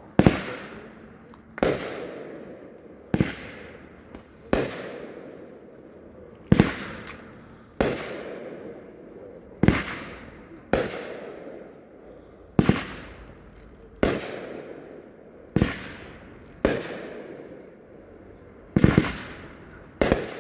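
Top Gun 'Golden Glamour' consumer fireworks cake firing shot after shot, about fourteen sharp bangs roughly every second and a half. Each bang trails off into a fading hiss as the flower-and-bees breaks burst overhead.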